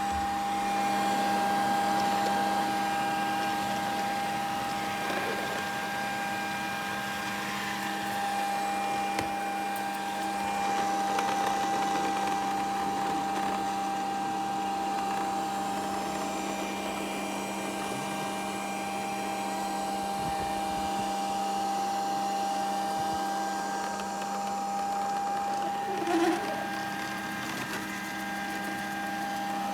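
Grundig VCR 2131 robot vacuum running: a steady motor hum with a held tone over a noise bed, and a short louder blip near the end.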